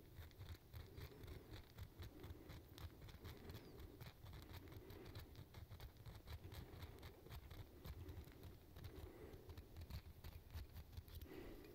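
Hook of a fishing lure being sharpened with a small hand-held hook sharpener: faint, quick metal-on-metal scraping strokes, several a second.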